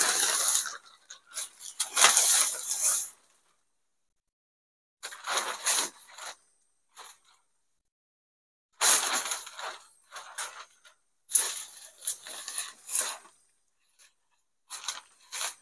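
Plastic tarpaulin sheet crinkling and rustling as it is pulled and spread over a pole frame, in irregular bursts of a second or two with silent gaps between.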